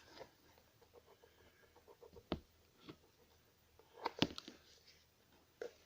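Small objects being handled and put down on a surface: a few light knocks and clicks, the clearest about two seconds in and a small cluster around four seconds in.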